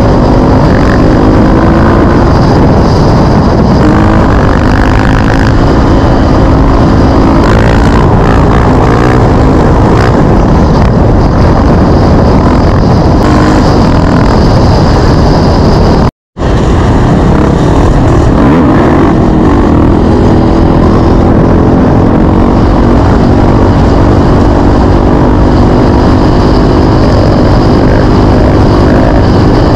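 KTM EXC-F four-stroke single-cylinder dirt bike engine running under the rider, loud and continuous, its pitch rising and falling with the throttle. The sound drops out for a split second just past halfway, where two clips are joined.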